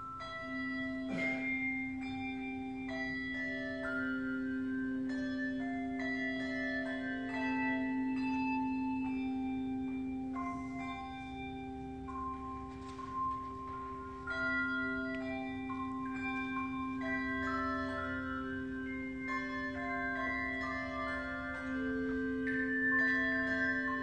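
A handbell choir ringing a melody in several parts, each bell's note ringing on and overlapping the next, over a low held tone.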